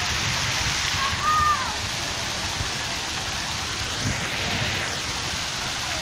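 Many small jets of a ground-level plaza fountain spraying up and splashing back onto the paving: a steady, even hiss like heavy rain. A brief high-pitched cry rises and falls about a second in.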